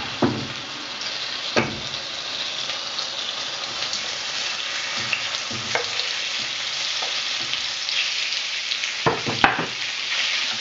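Mushrooms and Thai green curry paste sizzling steadily in a hot stainless steel frying pan, as raw haddock pieces are scraped into it off a wooden chopping board. A few sharp knocks of the spatula on the board and pan break the sizzle, the loudest near the end.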